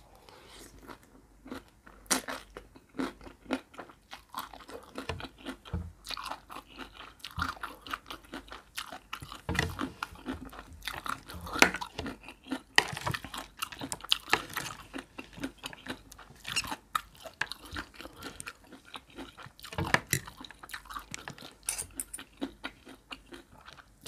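Close-miked chewing and crunching of a spicy horseshoe crab egg salad with shredded sour green mango and raw vegetables: many short, irregular crunches and wet mouth sounds.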